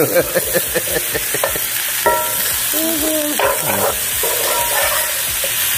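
A metal spoon stirring moringa (drumstick) pods and potato curry in a pot, scraping through the pods, over a steady sizzle of frying.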